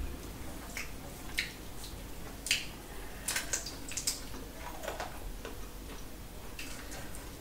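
Close-up eating sounds: wet chewing and lip smacks over a mouthful of rice and curry eaten by hand, heard as scattered, irregular sharp clicks.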